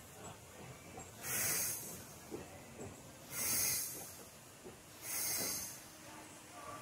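Steam locomotive letting out three sharp hisses of steam, evenly spaced about two seconds apart.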